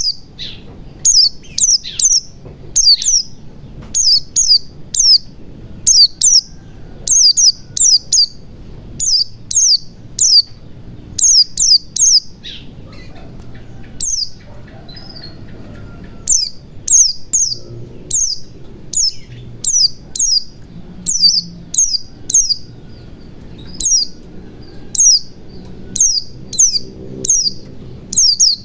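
White-eye (pleci) giving short, high chirps that fall in pitch, in quick groups of two or three about once a second, with a pause of a few seconds about halfway through.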